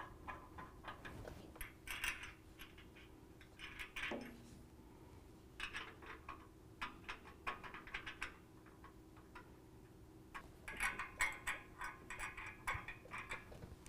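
Faint, irregular metallic clicks and ticks of nuts and lock washers being spun on by hand onto the studs of a steel bumper's D-ring mount, in short clusters with pauses between.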